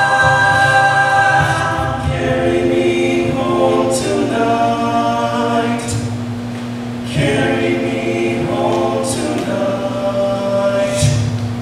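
Men's a cappella group singing in close harmony: sustained chords over a low bass voice, with one note held steadily through most of it.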